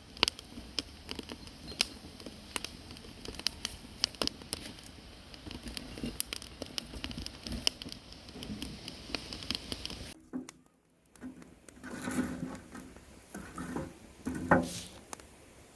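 Burning firewood crackling with many sharp pops and snaps. It breaks off suddenly about ten seconds in, then resumes with a few louder pops.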